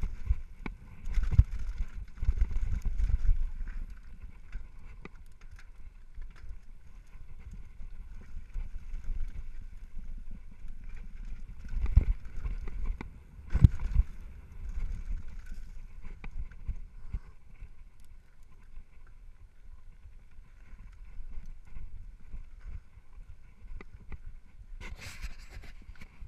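Downhill mountain bike riding over a dirt trail, heard from a camera on the bike: a low rumble of wind and ground on the microphone, with the bike rattling and several hard knocks over bumps. Near the end a short harsh burst as the bike comes to a stop on gravel.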